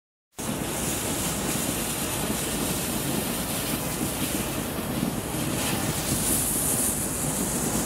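A steady rushing background noise cuts in just under half a second in; in the second half a small novelty ground firework shaped as a race car burns, its spark fountain hissing.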